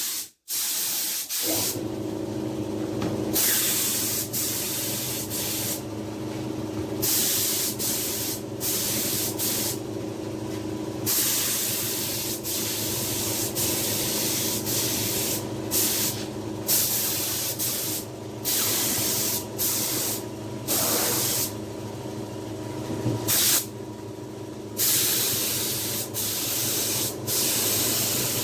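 Spray gun hissing in repeated bursts, each a second or two long, as primer is sprayed onto a plastic car bumper. Under it runs the steady hum of a motor, most likely the air compressor feeding the gun, which starts about a second and a half in.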